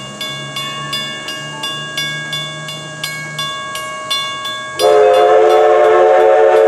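Railroad crossing bell dinging steadily, about three strikes a second. Near five seconds in, steam locomotive No. 11's whistle opens up, a loud chord of several tones that drowns out the bell, blown for the grade crossing.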